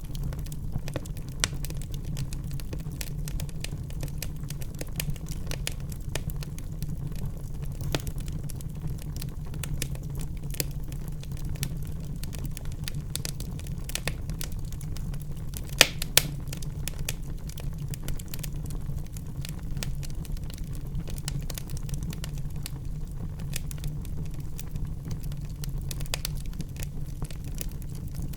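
Wood fire crackling in a fireplace: a dense run of small ticks and pops over a steady low rumble, with two sharper snaps about halfway through.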